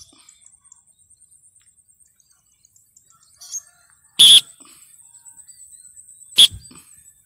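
Rainbow lorikeet giving two short, loud, harsh screeches, about four and six seconds in, over a faint steady high-pitched insect buzz.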